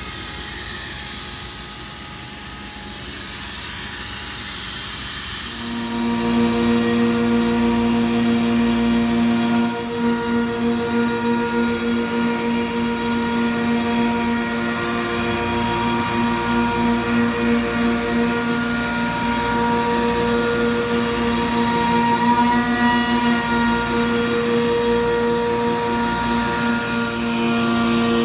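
MultiCam CNC router's 5.5 hp Colombo spindle running its warm-up cycle: a soft steady hiss, then about five seconds in a louder steady hum with a whine comes in abruptly and holds.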